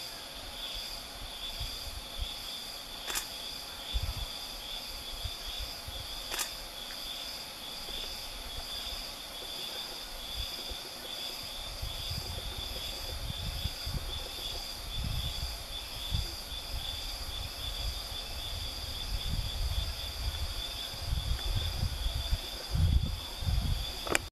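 Steady insect chorus: two high, even drones at slightly different pitches. Low rumbling on the microphone comes in from about halfway through and is strongest near the end, and two short clicks sound in the first several seconds.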